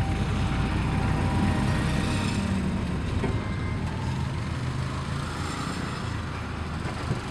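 Steady low rumble of a vehicle's engine and road noise heard from inside the cabin, easing a little about three seconds in.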